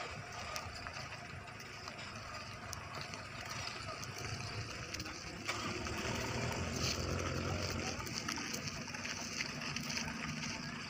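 Diesel engines of palm-oil trucks running as they crawl along a rough dirt track, a steady low drone that grows louder about halfway through.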